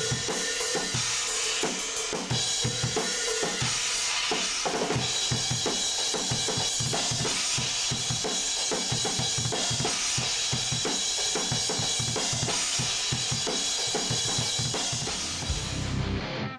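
Drum kit played hard and fast: dense, rapid bass drum and snare hits under a constant cymbal wash. A low sustained rumble comes in near the end.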